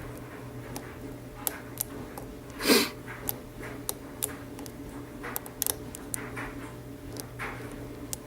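Lock picking on a Burg Wachter 50 mm padlock: irregular small metallic clicks and ticks from the pick working the pins against a tension wrench, with a steady low hum underneath. A brief, louder scraping noise comes about two and a half seconds in.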